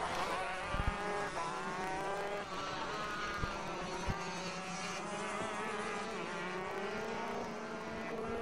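Two-stroke racing kart engines at race pace, several overlapping, their pitch rising and falling as the karts accelerate and slow through the corners.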